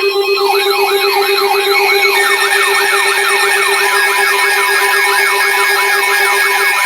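Electronic siren-style emergency alert tone: fast up-and-down pitch sweeps about three times a second over steady tones. A lower steady tone stops just before the end.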